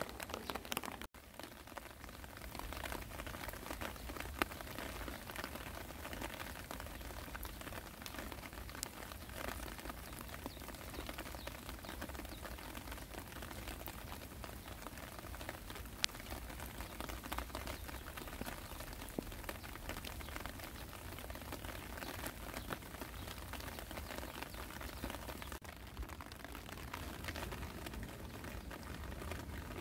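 Steady rain falling, an even hiss dotted with many small drop ticks and a couple of sharper ones. The sound briefly cuts out about a second in.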